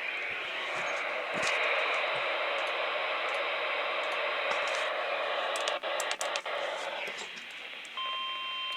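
Weather radio receiver giving out a steady static hiss, with a few sharp clicks about six seconds in. Near the end a steady alert tone starts: the NOAA Weather Radio 1050 Hz warning alarm that comes before a warning message.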